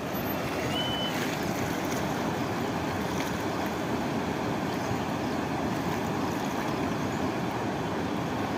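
Steady rush of floodwater from a swollen stream, an even, unbroken noise.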